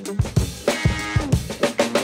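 Background music with a drum kit playing a steady, fast beat, about four strikes a second, under pitched instrument notes.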